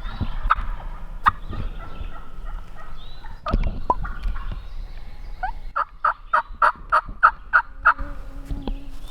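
Wild turkeys calling close by: gobbles in the first few seconds, then a run of about nine evenly spaced, turkey-type yelps lasting about two and a half seconds.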